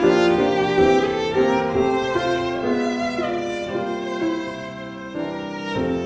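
Background music: a violin with other bowed strings playing a melody.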